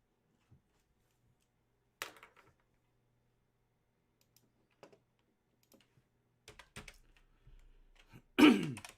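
Computer keyboard typing and mouse clicks: a single sharp click, then scattered clicks that turn into a quick run of key taps in the last few seconds. A brief, loud sound that falls in pitch, like a voice, cuts in near the end.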